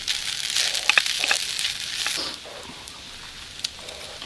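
Yakisoba sizzling in a pan over a FireBox wood-burning stove, a steady hiss with a few sharp crackles. The sizzle drops noticeably quieter a little over two seconds in.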